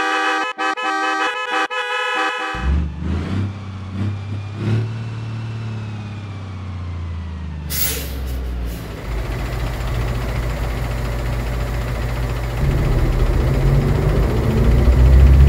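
A loud bus horn blaring, with a few short breaks, cuts off about two and a half seconds in; then a heavy bus engine runs, its pitch gliding as it pulls away. A sharp hiss of air about eight seconds in, typical of a bus's air brakes, and the engine keeps running, louder near the end.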